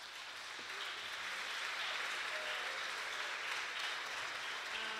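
Audience applauding steadily in an auditorium, with a few held notes starting to sound under the clapping near the end.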